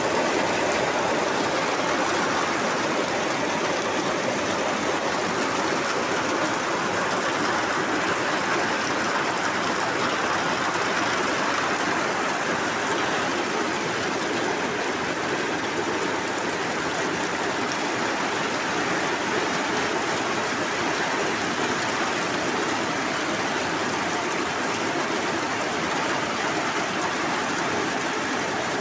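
Torrential rain in a storm, a loud, steady rush that is heavy enough to drown out speech, falling on corrugated metal roofing.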